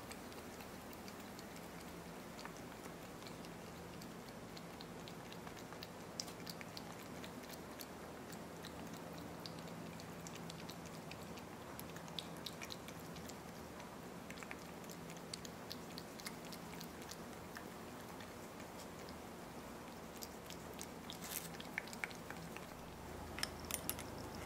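A cat licking yogurt off a plastic spoon: faint, irregular small wet clicks of its tongue, coming thicker near the end, over a faint steady low hum.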